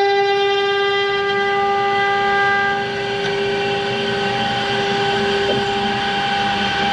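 Stone CNC router's spindle running with a steady high-pitched whine and a rough grinding noise underneath while cutting 15 mm marble. The whine thins and gets slightly quieter about three seconds in.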